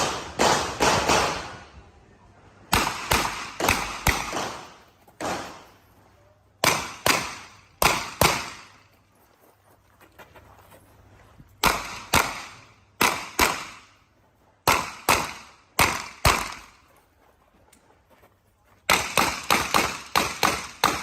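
Revolver fired in quick strings of shots, each string of a few sharp reports with a short echoing tail, separated by pauses of one to three seconds.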